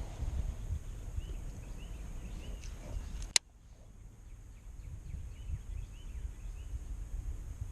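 Small birds chirping again and again over a low rumble of wind on the microphone. A single sharp click comes about three and a half seconds in, and after it the rumble drops away and the chirping goes on.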